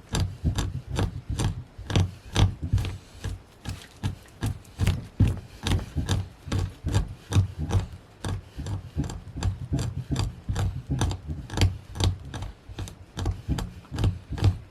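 Rhythmic scraping strokes of a hand tool drawn over an animal hide, about three strokes a second, as the hide is scraped during tanning.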